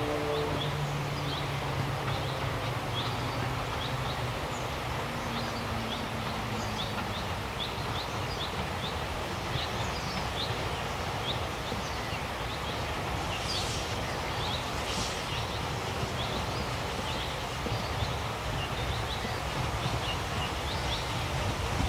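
Narrow-gauge steam train running slowly along the line, a steady rumble, with small birds chirping throughout. The last of the locomotive's whistle cuts off just at the start.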